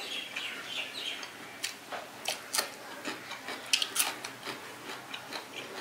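A person eating: irregular wet clicks and smacks of chewing and lip-smacking.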